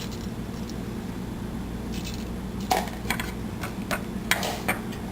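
Mustard seeds in a pan of hot oil, with several sharp clicks and small metallic taps from about the middle on, over a steady low hum.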